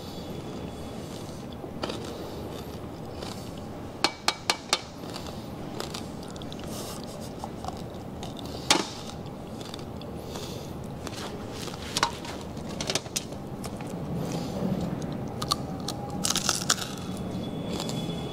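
Close-up crunching and chewing of crispy pata, deep-fried pork leg with crackling skin. Sharp crunches come in a quick run of four about four seconds in, then singly, with a busier spell of crunching near the end.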